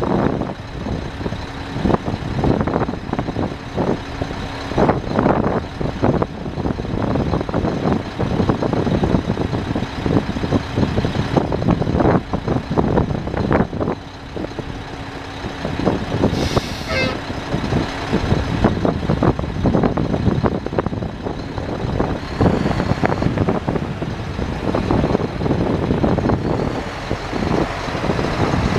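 Mack truck tractor's diesel engine running at idle under heavy wind buffeting on the microphone, with a short burst of air hiss about 17 seconds in.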